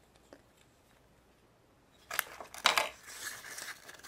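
Packaging crinkling and tearing in the hands as a surprise egg's contents are unwrapped, starting about halfway through after a near-silent first half.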